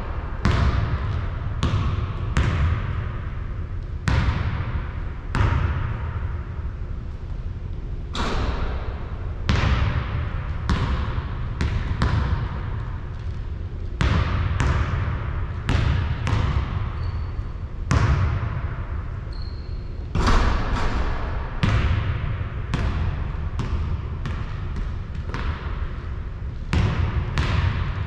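A basketball bouncing on a court, sharp impacts at uneven spacing, roughly one a second, each with a short ring after it, over a steady low rumble.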